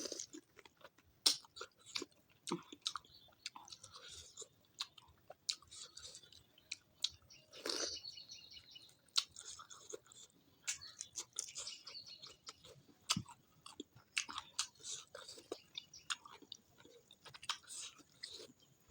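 A person chewing and eating food close to the microphone: irregular wet mouth clicks and smacks with occasional crunches.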